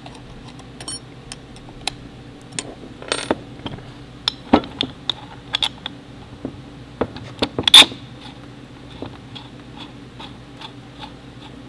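Small metal clicks and clinks of a hex key and button-head screws being handled and fitted into an aluminium handbrake housing, irregular taps with a sharper clack about eight seconds in.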